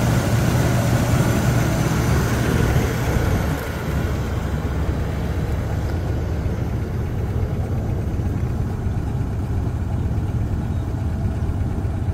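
1971 Buick Riviera's 455 V8 idling steadily, just brought back to life after sitting for a year or two. It gets a little quieter about three and a half seconds in.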